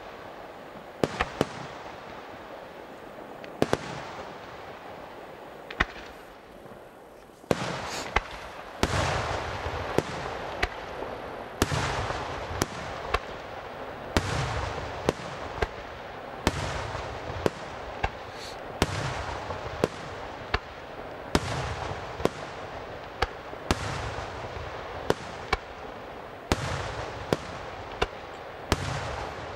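Aerial firework shells bursting in a pyrotechnic display, sharp bangs at irregular intervals about once a second. From about seven seconds in, a dense crackle with low thuds joins the bangs.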